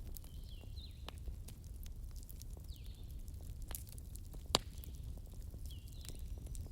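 Campfire crackling over a low steady rumble, with scattered sharp pops and one loud snap about four and a half seconds in. A forest bird calls three times with short chirps, each sweeping down then levelling off.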